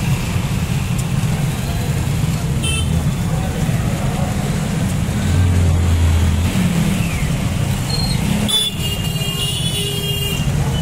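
Many motorcycle engines running as a procession of motorbikes rides slowly past, with a stronger low hum about five to six seconds in. A short high tone sounds about three seconds in and a longer high tone near the end.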